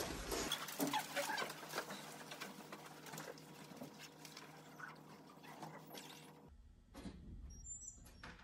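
A class of students getting up from their desks and walking out: scattered shuffling footsteps, light scuffs and knocks of chairs and desks, and paper rustling. It dies down to a few faint knocks in the emptied room near the end.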